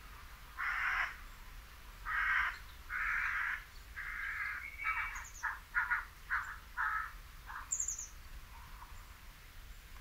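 A series of about ten harsh, rasping animal calls. The first four are longer and about a second apart; the later ones are shorter and come faster. A small bird gives two brief high chirps partway through.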